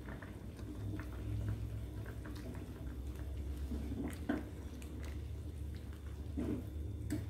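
A metal ladle stirring a simmering fish soup in a stainless steel pot, with a few soft clinks against the pot, the clearest about four seconds in and near the end, over a low steady hum.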